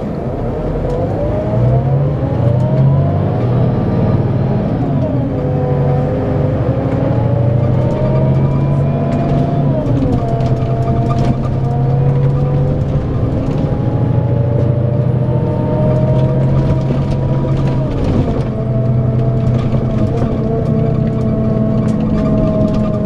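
Scania K410EB6 coach's six-cylinder diesel engine accelerating hard: its note climbs, then drops sharply at each upshift, three times in all, then holds steady.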